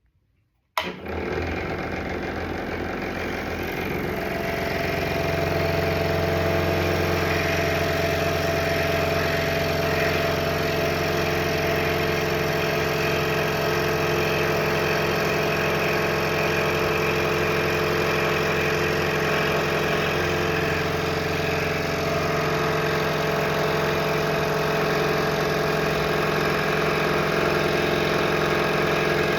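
Scroll saw running steadily, its blade cutting a stacked set of maple, cherry and walnut panels. It starts suddenly about a second in, a steady motor hum with a constant whirr over it.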